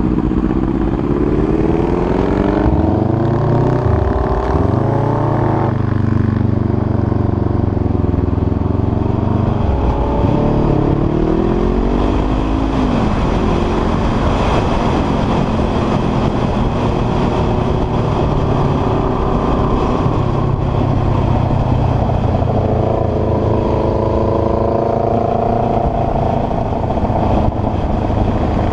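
Honda sport motorcycle's engine accelerating through the gears, its pitch climbing and dropping back several times as it upshifts, then holding a steady cruise before climbing again near the end, with wind rushing over the microphone.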